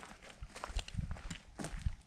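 Footsteps of a hiker walking along a trail: a series of soft thumps a few times a second.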